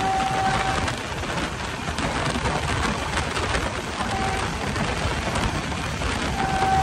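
Running noise of the Samata Superfast Express coach under way: a steady rush of wheel-on-rail and wind noise. A thin, steady high tone sounds at the start, comes back briefly about four seconds in, and returns near the end.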